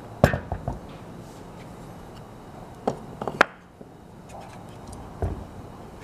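Knocks and clunks of a sealed Tecumseh fridge compressor and wooden support blocks being handled and set down on a wooden workbench: a cluster of knocks in the first second, another around three seconds in, and one more near the end.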